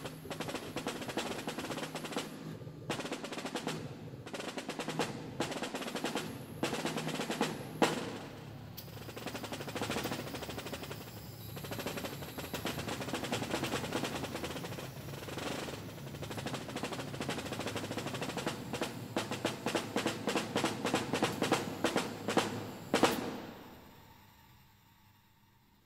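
Snare drum played with sticks in a fast solo passage of rapid strokes and rolls, with sharp accents. A final loud accent about 23 seconds in rings off and the drum falls quiet.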